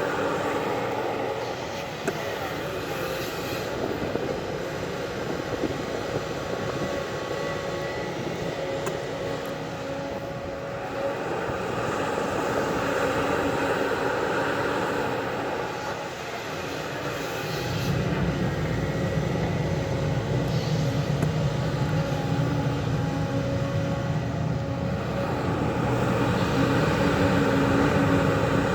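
Diesel engine of a JCB earthmoving machine running steadily, with a heavier low rumble coming in about two-thirds of the way through as it works under more load.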